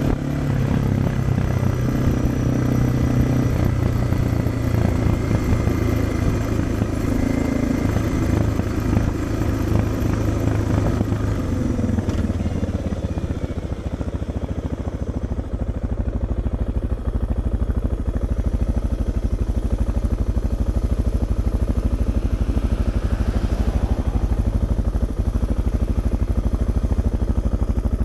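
Suzuki DR650's single-cylinder four-stroke engine running through a Dominator aftermarket exhaust, heard from the rider's position. The engine pitch rises and falls at first. About halfway through it settles into a steady, low-rpm beat.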